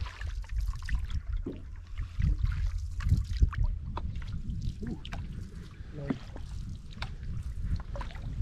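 Canoe being paddled: wooden paddle blades dipping and pulling through the water, with irregular drips and small splashes off the blades over a low rumble.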